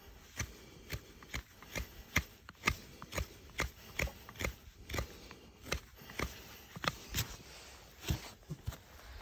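Sharp metal clicks and taps of a farrier's hand tool working at a shod horse's hoof, about two to three a second in an uneven rhythm.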